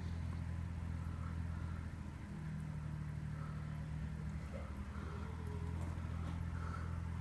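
Generator engine of a portable police light tower running with a steady low hum.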